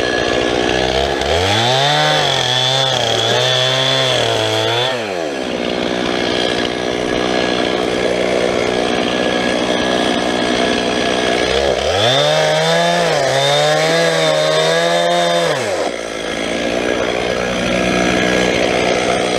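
Stihl MS 391 two-stroke chainsaw idling, then revving to full throttle twice, about a second in and again about twelve seconds in, for some four seconds each time before it drops back to idle. At full throttle the pitch sags a little under load as the 20-inch bar cuts into the oak trunk.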